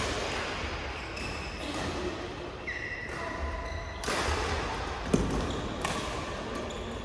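Badminton play in an indoor hall: a few sharp racket hits on the shuttlecock, with short squeaks of shoes on the court floor between them, all echoing in the hall.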